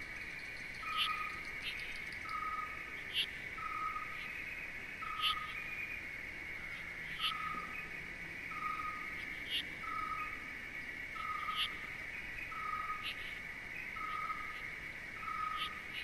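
Steady insect trill, with a short low note repeated about every three-quarters of a second and a brief high chirp every second or two, laid over the picture as a nature ambience.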